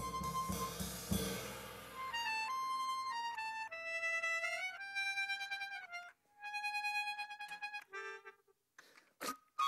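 Music: a slow melody of held, reedy notes stepping up and down, with a burst of crashing, thudding noise in the first two seconds. The line breaks off briefly near the end before a sharp click.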